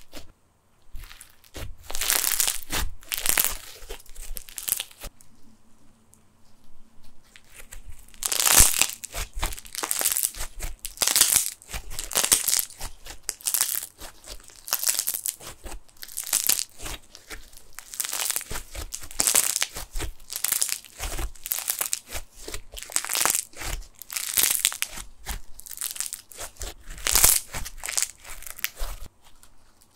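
Snow fizz slime, a PVA-glue slime mixed with plastic snow, pressed, squeezed and kneaded by hand, giving irregular bursts of crackling, fizzing pops. There is a quieter pause of about three seconds around five seconds in, then the crackling resumes more strongly.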